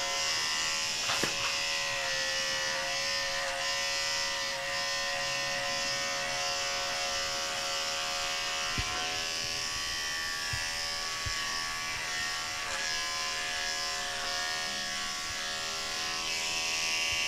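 Corded electric dog grooming clipper buzzing steadily as it shaves a Maltese's coat short around the head and face. The hum dips slightly in pitch about two seconds in, with a few soft knocks near the middle.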